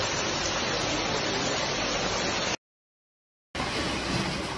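Water pouring steadily from a burst pipe through a broken-open ceiling, a continuous rushing hiss. It cuts off abruptly a little past halfway, and after about a second of silence a different steady rushing noise begins.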